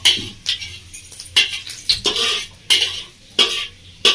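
Metal spatula scraping and knocking against a hammered brass kadai in repeated strokes, roughly one or two a second, while stirring whole spices frying in oil for a tempering.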